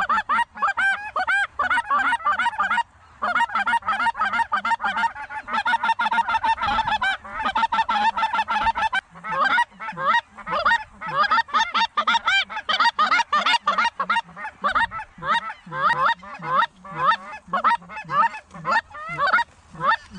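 Large flock of snow geese calling: a dense chorus of many overlapping honks, with a brief lull about three seconds in.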